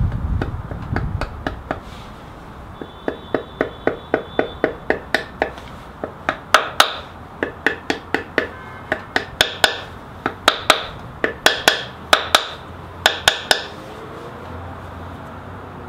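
A hammer tapping steadily on metal, light knocks that start sparse and then come quicker and louder at two to three a second with a short metallic ring, stopping near the end: driving a new oil seal into a small engine's housing.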